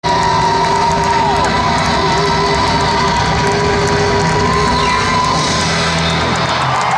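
Live rock band with a saxophone playing through a stadium PA, heard from among the crowd, with cheering and whoops over it. The band's low end thins out near the end while the cheering carries on.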